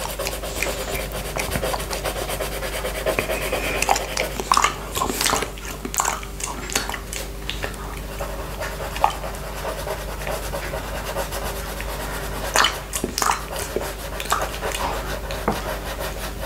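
Close-up mouth sounds of licking and sucking on a glass plate: wet smacks and clicks, with breathing. A coloured pencil rubs on paper underneath.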